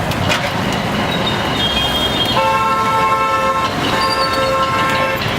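Vehicle horn sounding two long blasts, each a little over a second, with a short gap between, over steady street traffic noise.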